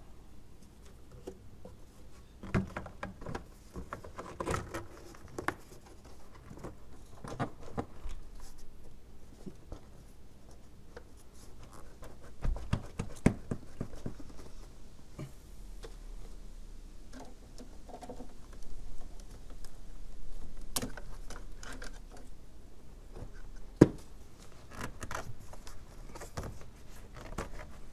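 2004 GMC Envoy's plastic air intake resonator and rubber intake hose being handled and seated on the engine: scattered knocks, rubs and clicks of hard plastic, with one sharp click about four seconds before the end.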